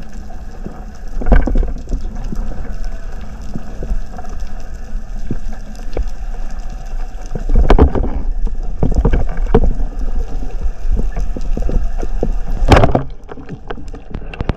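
Underwater: a low rush of moving water with scattered clicks and knocks as the diver swims in. About two seconds before the end comes one sharp, loud crack as the rubber-band speargun fires.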